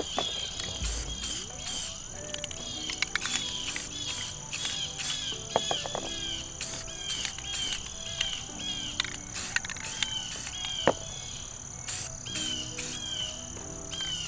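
Insects chirping outdoors: a steady high-pitched drone with rapid, regular pulsed chirps over it, against soft background music. A few sharp clicks stand out, the loudest about eleven seconds in.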